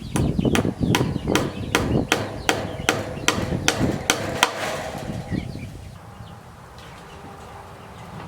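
A hammer striking about a dozen times in a steady rhythm, roughly two and a half blows a second, fastening wire to the coop's wooden boards. The blows stop about four and a half seconds in.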